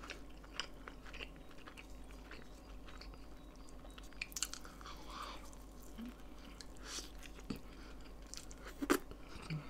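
Chewing and biting of a cheese quesadilla up close to the microphone: soft wet mouth clicks and occasional crunches of tortilla, with a louder click near the end.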